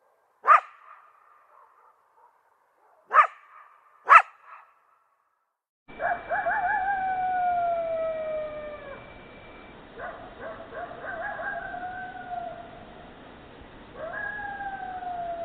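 Jackals calling: three short, sharp yelps in the first few seconds, then a run of long howls, each starting with a quick wavering trill and sliding slowly down in pitch, three in a row.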